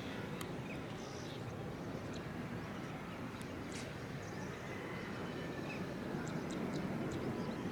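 Quiet outdoor ambience: a low steady rumble with scattered faint bird chirps, growing slightly louder near the end.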